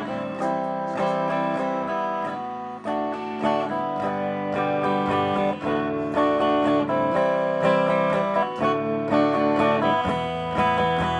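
Electric guitar strumming chords and picking notes through a Sears Silvertone Twin Twelve 1484 tube amp. Only one of its 12-inch speakers is connected, the unrepaired one, whose cone has sections eaten away around its edge, the cause of the distortion being checked.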